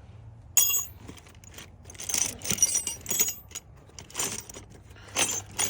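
Small metal objects clinking and jangling in several short bursts, like tools or keys being handled and set down.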